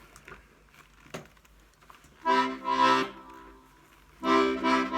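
Treble side of a freshly repaired Hohner Student 72 accordion: a short chord about two seconds in, then another chord held from about four seconds in. A faint click comes about a second in.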